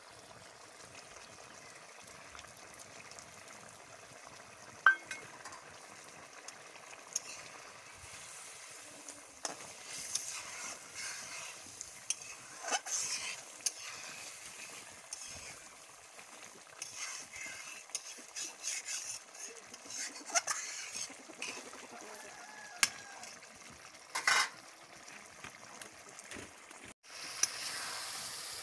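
Chicken pieces in masala gravy sizzling and simmering in a steel kadai, a steady hiss, while a metal spatula stirs and scrapes against the pan with scattered clinks. A sharp metal knock about five seconds in is the loudest sound.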